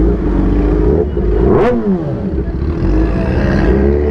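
Vehicle engines running slowly in traffic, with one quick rev and a sharp exhaust pop about one and a half seconds in, the revs falling back straight after.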